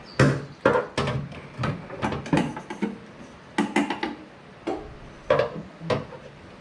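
About a dozen irregular knocks and clunks of hard objects being handled and set in place while the vehicle's hood is being propped up higher.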